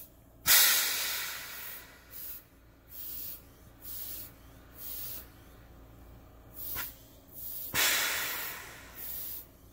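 Rubber hand-bulb pump squeezed over and over, each squeeze a short puff of hissing air about once a second as it draws sampled air through tubing into an oxygen meter. Twice, about half a second in and near the end, there is a louder, longer breath-like rush of air that fades slowly.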